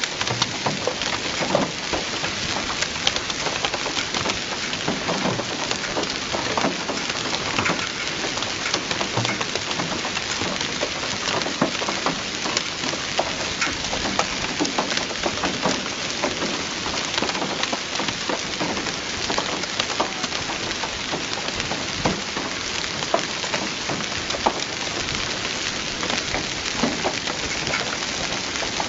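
Rain falling steadily: an even hiss dotted with many sharp individual drop hits.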